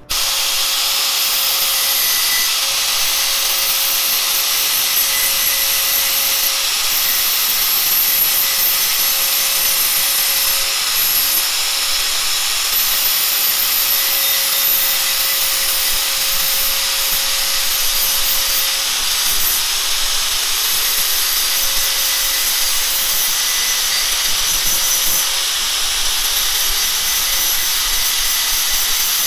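Makita 9553B 100 mm angle grinder (710 W brushed motor) running under load, its abrasive disc grinding burrs flat on the cut end of a steel box-section tube. A steady, hissing grind of metal on abrasive sits over a constant motor whine.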